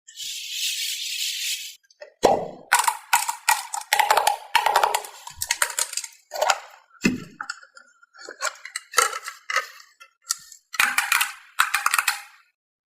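A short hiss, then small plastic balls clattering and rattling against each other and a hard surface in repeated bursts.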